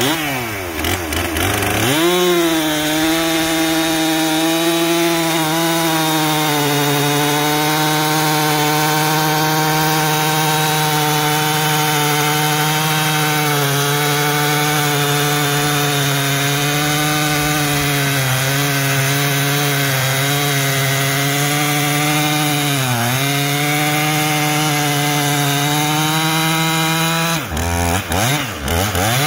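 Stihl MS 362 two-stroke chainsaw revving up, then held at high speed under load as its freshly hand-filed chain cuts through a poplar log. The pitch dips briefly about three-quarters of the way through, and near the end the saw is let off and blipped a few times.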